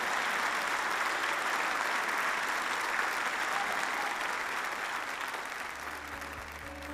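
Congregation applauding, the clapping fading away over the last couple of seconds as a low music note comes in.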